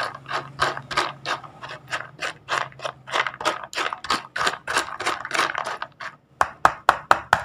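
Green plastic spoon stirring dry dog kibble and minced meat in a plastic bowl: a steady, rhythmic scrape and rattle of pellets, about three strokes a second. Near the end the strokes quicken into a run of sharper, louder clicks.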